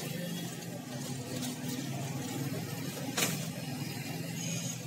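Plastic courier bag being handled and picked open by hand, with a sharp crackle of plastic about three seconds in. Under it runs a steady low engine hum from a running vehicle.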